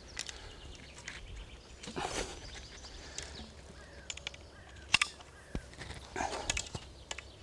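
Carp rods and reels being handled on a rod pod: scattered sharp clicks and rustles, the sharpest about five seconds in. A bird gives a few short calls.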